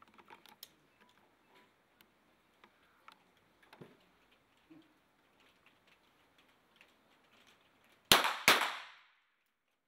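Two .22 sport pistol shots about half a second apart near the end, each with a short echo. Faint clicks and knocks come before them.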